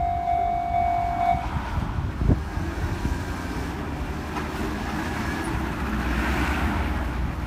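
Level-crossing warning bell ringing in a steady tone, stopping about a second and a half in as the barriers lift. Road traffic then rumbles across the crossing, with a single knock about two seconds in and engine noise from a scooter and cars growing toward the end.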